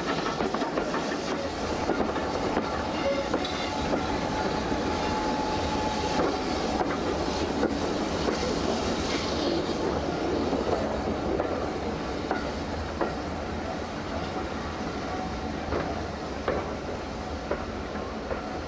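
Steam-hauled passenger coach rolling along the track, heard from an open carriage window: a steady running noise with the clickety-clack of wheels over rail joints. It grows a little quieter in the second half as the train runs alongside a station platform.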